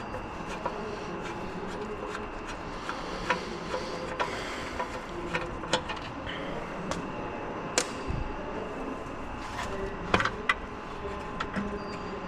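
Scattered light clicks and knocks of hand tools and fasteners being worked on car engine-bay parts, over a steady background hum; the sharpest knocks come about 8 and 10 seconds in.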